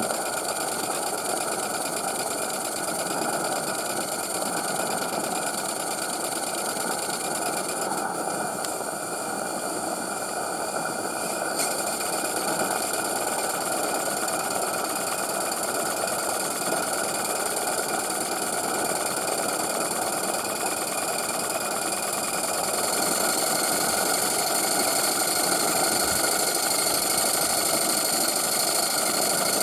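Steady roar of the gas burner firing the boiler of a 3/4-inch Maxitrak Allchin live-steam traction engine, growing a little louder in the last few seconds.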